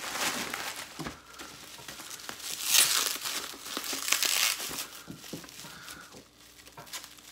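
Plastic mailer bag crinkling and tearing as it is pulled open, with a bubble-wrapped package handled out of it; the loudest crinkling comes about three seconds in.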